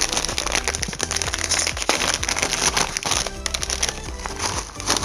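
Foil bag of Chitato potato chips crinkling and crackling as it is handled, over background music.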